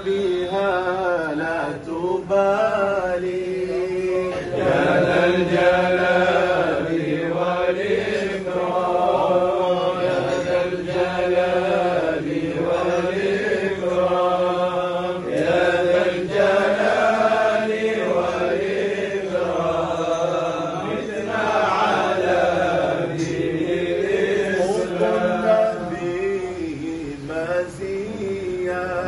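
Men's voices chanting an Islamic nasheed together without instruments, in a flowing melody that rises and falls.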